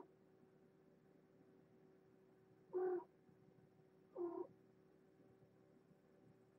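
A cat gives two short meows about a second and a half apart, over a faint steady background hum.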